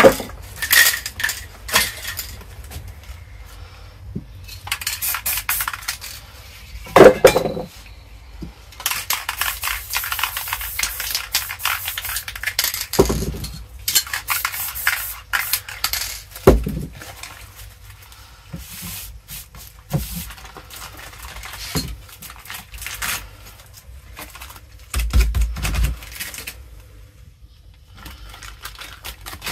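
Aerosol spray-paint cans being shaken, their mixing balls clattering, and sprayed in repeated hissing passes, with a few dull thumps from handling on the work table.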